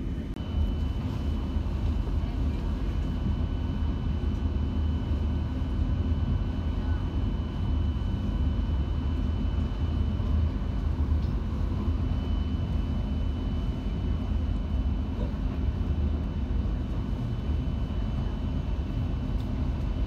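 FGC electric commuter train heard from inside the car while running at speed: a steady low rumble of wheels on rail, with a thin, steady high whine over it from about half a second in.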